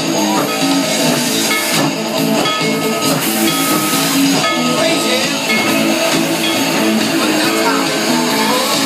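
Loud music with guitar, playing steadily.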